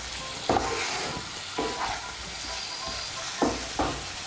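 A spatula stirs cauliflower florets and potatoes in spice masala in a nonstick kadai, over a steady sizzle of frying. The spatula scrapes and knocks against the pan about four times.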